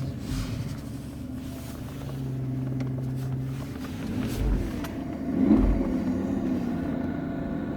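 Cabin knock in a running Mercedes W221 being recorded: a steady low engine hum with several scattered knocks and low thumps, the loudest about five and a half seconds in.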